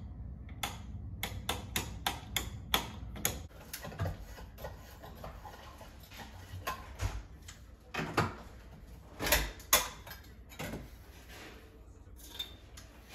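Irregular clicks and knocks from handling a recessed ceiling light: the old trim and bulb being worked out of the can and a new LED retrofit insert brought up to it. A few louder knocks come about two-thirds of the way through.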